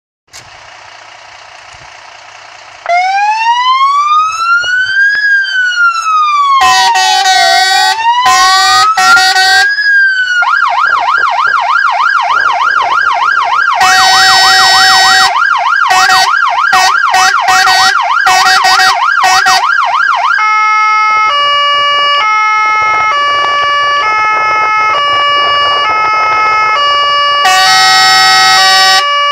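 Fire engine siren run through its tones on a MAN TGM rescue-firefighting truck. After about three seconds a slow wail rises and falls, then a fast yelp warbles up and down, broken by short loud blasts, then a stepped sequence of steady tones, ending with a longer loud blast before the wail starts again.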